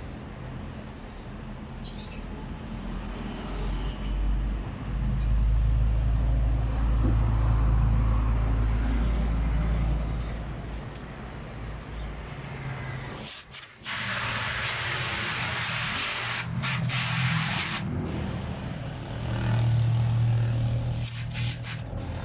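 A motor vehicle engine running close by, with a low hum that swells and eases, and a loud hiss of air lasting a few seconds about two-thirds of the way through.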